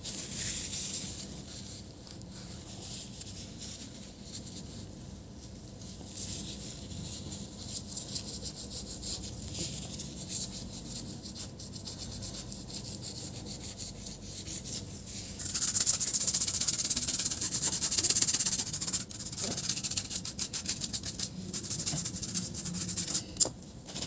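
A brush scrubbing a laptop motherboard, its bristles scratching across the circuit board in quick back-and-forth strokes to clean off dust and liquid residue. The scrubbing gets harder and louder about two-thirds of the way in.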